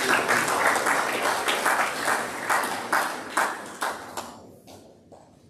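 Audience applauding, a dense patter of many hands clapping that fades away about four and a half seconds in.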